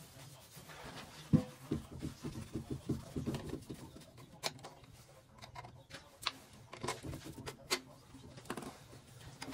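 Hand tools working at a toilet flange. A sharp knock about a second in is followed by a quick run of scraping strokes, then scattered sharp clicks and taps of a screwdriver against the flange and closet bolts.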